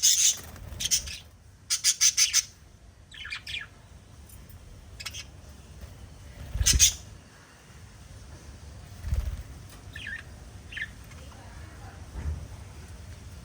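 Small pet parrots chirping: quick trains of high chirps in the first couple of seconds, then scattered single chirps and short calls with pauses between them, one louder call about halfway through.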